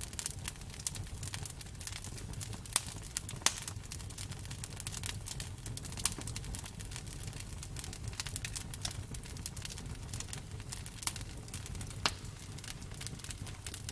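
Bonfire crackling: a dense run of sharp pops and snaps, a few much louder than the rest, over a steady low rumble of the burning fire.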